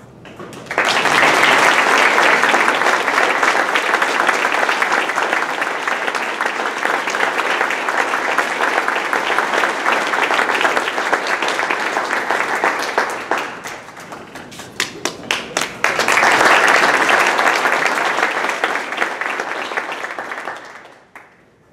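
Audience applauding in a long round, dying down to a few scattered claps about two-thirds of the way through, then a second round of applause that fades out near the end.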